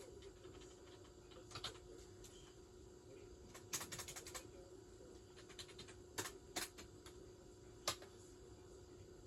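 Faint VHS tape playback noise: a steady hum under hiss, with scattered irregular clicks and crackles, a quick cluster of them about four seconds in and a sharp one near the end.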